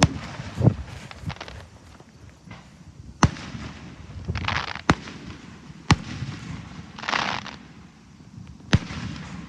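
Aerial fireworks going off: a series of sharp bangs, one every second or two, with two short hissing bursts in between.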